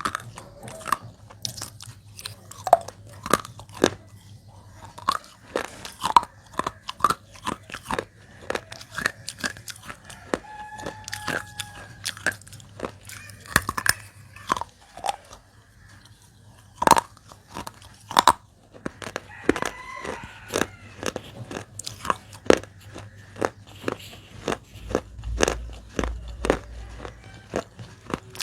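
Close-miked biting and chewing of dry baked clay pieces: a steady, irregular run of sharp crunches and cracks as the clay is bitten through and ground between the teeth.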